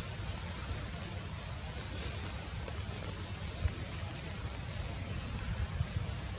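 Steady outdoor background noise with a low rumble, a brief high chirp about two seconds in, and a couple of faint knocks near the end.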